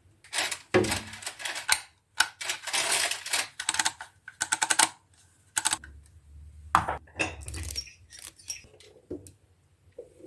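Irregular clicks, taps and short scrapes of hard kitchen items such as containers and lids being handled and set down while a refrigerator is organized, with a quick run of clicks about halfway through.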